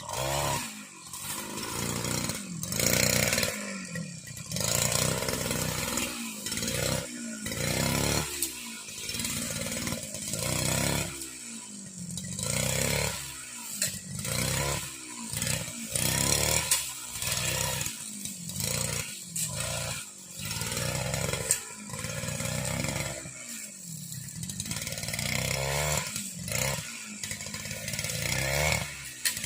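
Petrol brush cutter's small engine running, its speed rising and falling over and over as it cuts grass.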